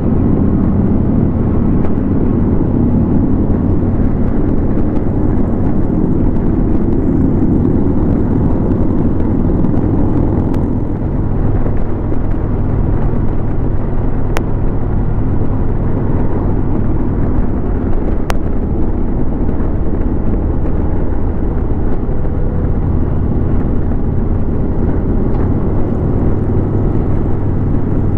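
Harley-Davidson Road King's V-twin engine running steadily at highway cruising speed, mixed with wind and road noise rushing past the bike.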